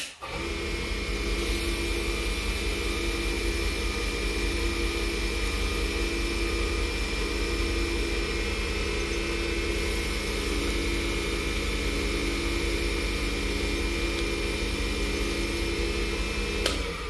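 Small wood lathe's electric motor running at a steady speed, spinning a padauk pen blank for sanding with an abrasive pad. It starts abruptly and shuts off shortly before the end.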